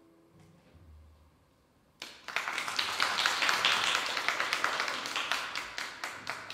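A piano's final chord dies away, then, about two seconds in, an audience breaks into applause that carries on to the end.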